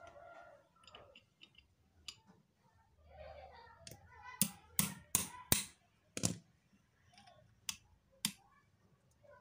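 Hands fitting a metal drill chuck and chuck key onto an electric motor's shaft: a run of sharp metal clicks and knocks, several in quick succession about four to six seconds in and two more near the end.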